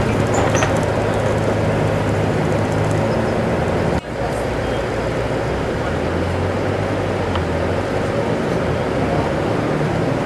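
Diesel engine of a Volvo 8400 low-floor city bus running under way, heard from inside the cabin as a steady low hum over road noise and the air-conditioning blower's rush. The sound briefly drops out about four seconds in, and the engine hum settles lower afterwards.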